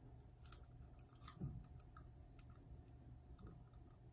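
Faint, irregular small clicks of a clear plastic aligner tray being pressed onto the upper teeth with the fingers, over low room hum.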